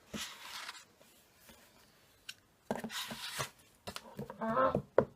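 Two short spells of rubbing and scraping handling noise, then a brief spoken "oh" near the end.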